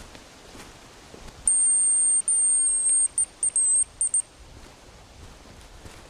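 Hazel grouse decoy whistle blown to imitate the bird's call: a thin, very high whistle held for about a second and a half, then a run of short broken notes that dip slightly, stopping a little past four seconds in.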